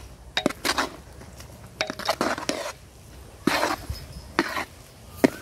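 Metal spatula and ladle scraping and clinking against a large metal cooking pot while tossing cooked rice, in a series of separate strokes with short pauses between them.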